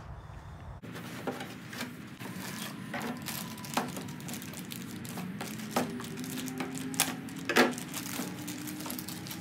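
Plastic parts bag crinkling and rustling as it is handled and torn open, mixed with cardboard box handling and small knocks on the table; the loudest crackles come about seven seconds in.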